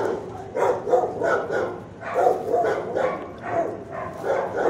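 Dogs barking in a shelter kennel, a steady run of short barks at about two a second.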